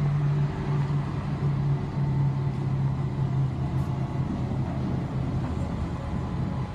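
Bombardier tram running along its track, heard from inside the driver's cab: a steady running drone with a low, even hum.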